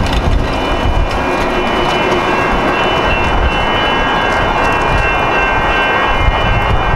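Light rail train rolling away over a grade crossing while the crossing's warning bells keep ringing, heard as steady high tones. Gusty wind rumbles on the microphone.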